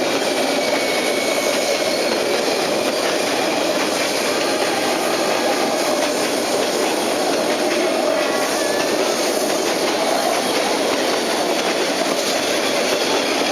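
Train rolling through a level crossing: a steady, loud noise of railcar wheels running on the rails.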